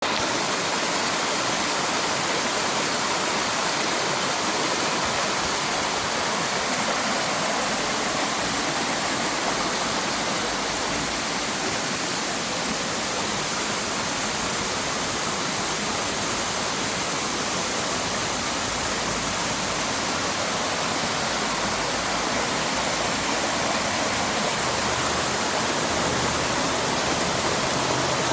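Soco Falls waterfall, water falling and rushing in a steady, even roar that holds at the same level throughout.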